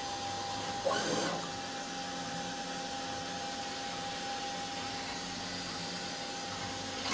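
Milltronics TRM3016 CNC mill with a 1/2-inch drill turning in its spindle, drilling holes through a steel ring: a steady machine hum with a thin high tone. There is a brief louder sound about a second in.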